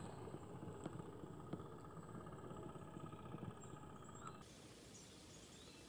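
Faint, rapid, even pulsing from a miniature steam boat's engine running, with a few light ticks; it drops away abruptly about four seconds in.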